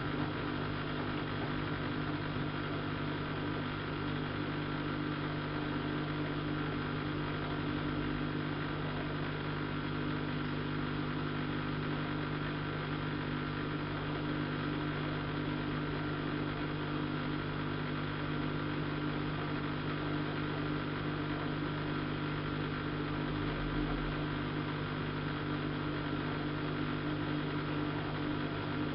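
Siemens Siwamat IQ-series washing machine running, a steady hum of several pitched tones that holds even throughout.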